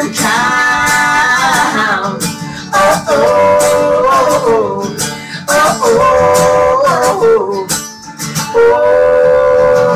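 Acoustic guitar strummed with singing in long held notes that glide between pitches, a live unamplified performance of a song.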